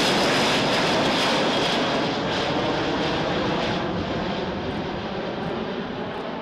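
C-17 Globemaster III's four turbofan engines passing low overhead: loud, steady rushing jet noise with a faint high whine, fading slowly as the aircraft moves away.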